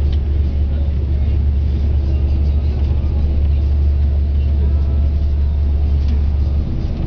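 Steady engine and road rumble heard from inside a moving bus. The deep hum eases a little near the end.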